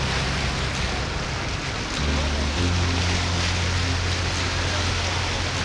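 Tour boat's engine running with a steady low drone under the rush of churning water along the hull; the drone grows louder about two seconds in.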